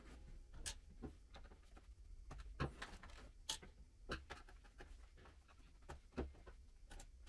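Faint, irregular clicks and light knocks of hands handling the Amiga 1200's plastic case and tools on a workbench.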